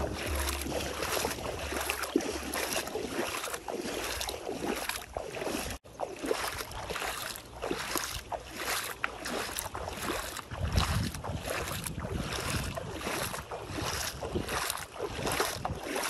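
Bare feet wading through ankle-deep seawater, a swish of water with each step about twice a second, with some wind rumble on the microphone.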